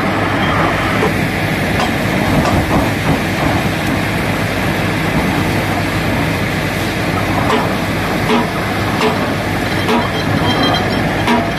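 Truck-mounted down-the-hole (DTH) borewell drilling rig running loudly and steadily, its engine and air compressor droning while compressed air blows water and slurry up out of the borehole. Short metallic knocks break in now and then, more often in the second half.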